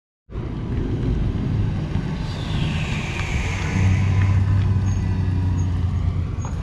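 Car engines running as cars drive past, with a deep steady engine note that grows louder about four seconds in.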